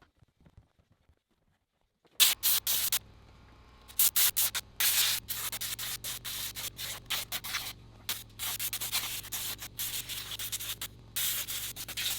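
Detailing sprayer firing short, repeated hissing bursts over a steady motor hum, starting about two seconds in.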